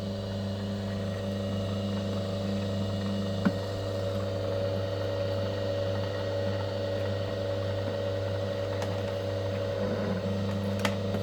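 Small electric cable-stripping machine running with a steady motor hum. A single sharp click comes about three and a half seconds in.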